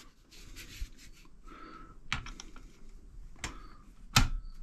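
Light metal clicks and taps of a socket and extension being handled and fitted onto a cylinder nut on a motorcycle engine, with a sharper metal clank about four seconds in.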